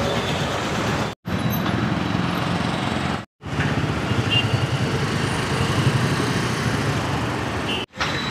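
Steady road traffic noise from passing vehicles, broken by three brief dropouts.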